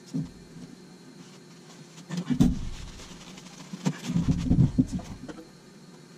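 Scattered knocks, clicks and scrapes of a hand handling the filter and metal casing of a ceiling-mounted fan coil unit. There is a sharp click at the start, a cluster of knocks about two seconds in, and another run of them about four to five seconds in.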